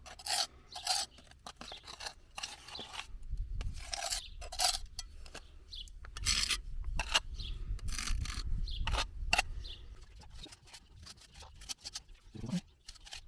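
Repeated short scrapes and rubbing, with a low rumble through the middle, from hands-on work fitting a gate lock.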